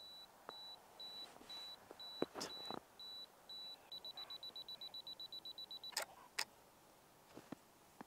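A Canon DSLR's self-timer beeping: short high beeps about twice a second, then a fast run of about nine beeps a second for the last two seconds, then the shutter firing with two sharp clicks. A few faint handling clicks from the gloved hand on the camera come before.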